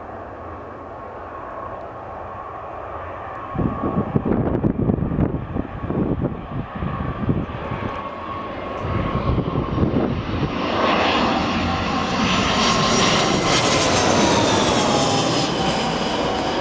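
Airbus A319 jet engines on landing approach, growing steadily louder as the airliner comes closer, their whining tones sliding down in pitch near the end as it passes close by. From about four seconds in, irregular gusts of wind rumble on the microphone.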